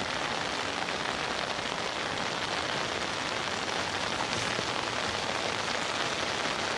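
Heavy rain falling steadily, an even hiss of drops with nothing else standing out.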